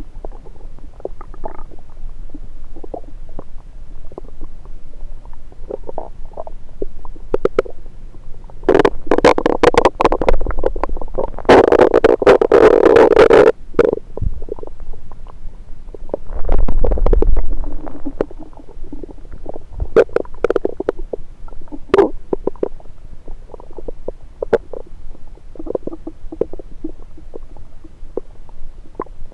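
Stomach and bowel gurgles heard through a stethoscope pressed on the belly. Many small pops and crackles, a long loud gurgle from about nine to fourteen seconds in, and a deep low rumble a few seconds later.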